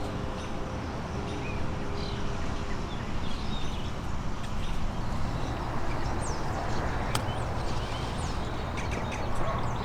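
Small birds chirping and calling repeatedly in short, quick notes over a steady low rumble, with one sharp click about seven seconds in.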